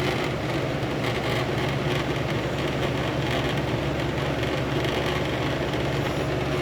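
Window air conditioner running on low with only its fan blowing and the compressor not running: a steady rush of air over a constant low motor hum.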